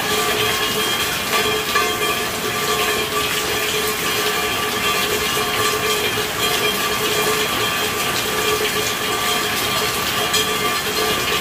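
Steady rainfall: an even hiss of drops with fine patters, with a few faint held tones running under it.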